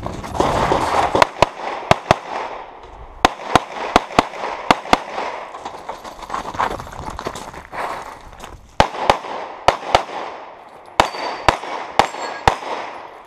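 Pistol shots fired in quick pairs, about twenty in all, in several clusters with a pause of a few seconds in the middle.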